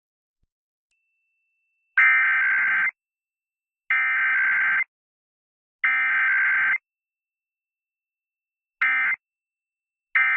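Emergency Alert System SAME data tones: three buzzy, warbling bursts of digital header, each about a second long and about two seconds apart. After a pause come two much shorter end-of-message bursts, with no attention tone between.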